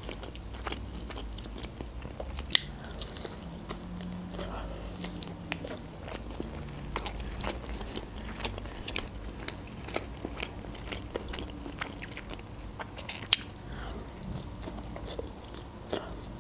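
Close-miked biting and chewing of chicken wings: wet mouth clicks and smacks scattered throughout, with one louder click late on.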